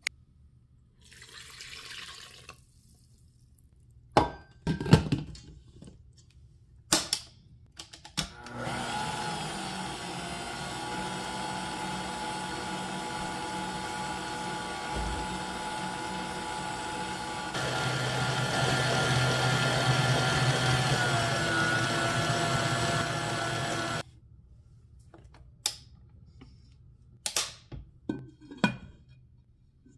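A small electric kitchen mixer motor runs steadily, steps up to a louder, faster speed partway through, then cuts off suddenly. A few short knocks come before and after it.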